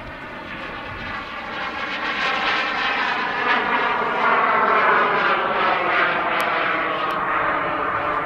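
Small gas turbine engine of a Boomerang RC jet in flight: a steady jet whine and rush that grows louder as the plane comes closer, loudest a little past the middle, then easing slightly.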